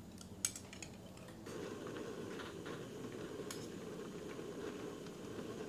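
A few light clicks of chopsticks against a bowl, then from about a second and a half in a steady low rush from a pan of spicy hot-pot broth cooking on a portable gas stove, with a few light clinks.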